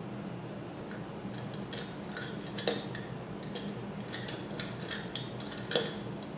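Scattered light clicks and taps of small hard objects, with two louder knocks, one a little over two and a half seconds in and one near the end, over a low steady hum.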